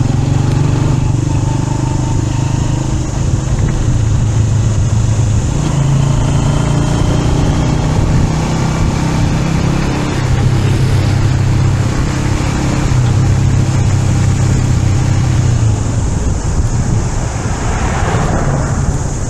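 Motor vehicle engine running steadily with road noise, its low hum shifting slightly in pitch a couple of times.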